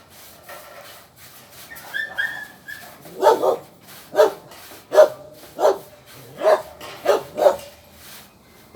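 A dog barking: a run of about seven sharp barks, starting about three seconds in.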